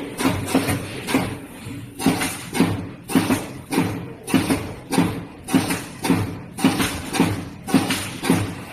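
Automatic spot welding machine cycling, making a steady run of clunks about twice a second that stops just before the end.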